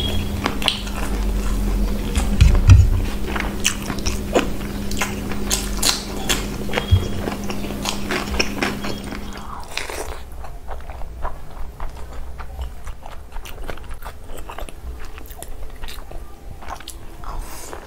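Close-up eating sounds: mouthfuls of rice and curry eaten by hand, chewed and crunched with many small wet clicks and smacks. A steady low hum runs under the first half and stops about halfway through, after which the chewing is quieter.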